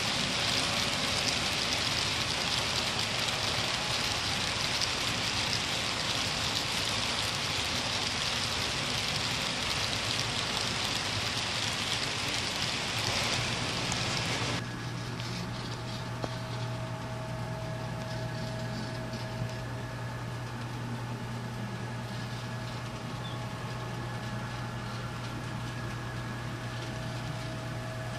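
Model coal train rolling past on the layout: a steady hiss of many hopper-car wheels on the rails, which cuts off suddenly about halfway through. It gives way to a quieter, steady low hum with a few faint steady tones.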